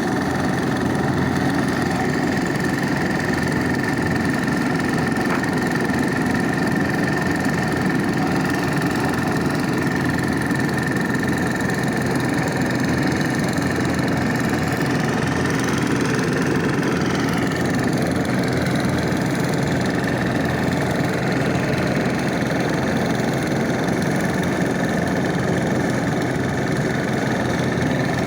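Road roller's diesel engine running steadily, with a constant high whine over it.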